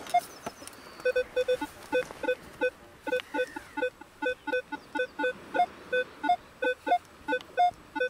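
Minelab Equinox 600 metal detector sounding a string of short electronic target beeps through its speaker as the coil sweeps over sand, mostly at one low pitch with some higher ones mixed in, about two to three a second from about a second in. The repeating tones mean the detector has found a target in the ground.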